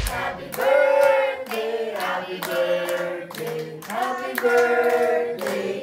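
A group of voices singing a birthday song together, with hands clapping in time at about two claps a second.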